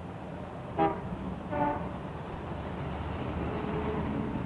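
Car horns tooting twice, briefly, about a second in and again just after, over a steady hum of street traffic.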